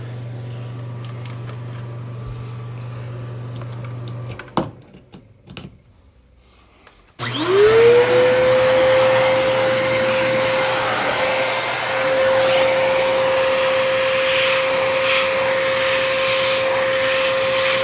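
A steady low hum, a few knocks, then a second vacuum cleaner switched on about seven seconds in: its motor spins up to a steady high whine and runs loudly, used to suck dust out of a Bissell vacuum's filter.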